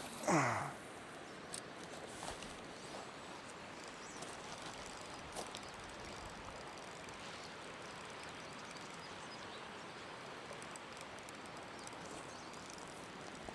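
A fishing rod cast: a quick swish with a falling whizz of line in the first second. Then steady faint outdoor background hiss with a few light clicks.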